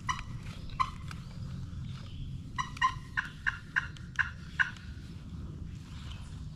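Wild turkey yelping: two short yelps, then a run of about seven yelps at roughly three a second.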